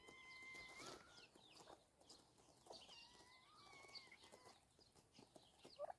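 Faint calls of young poultry: thin, held peeping tones and short chirps, very quiet.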